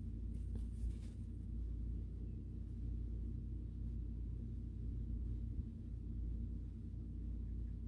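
A steady low hum that holds at a constant level, with a few faint ticks in the first second.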